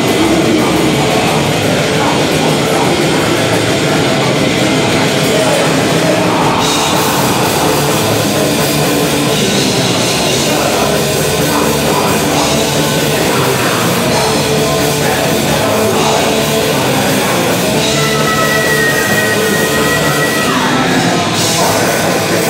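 Heavy metal band playing live: distorted electric guitars, bass and drum kit, with a singer at the microphone. Near the end a high held note slides down.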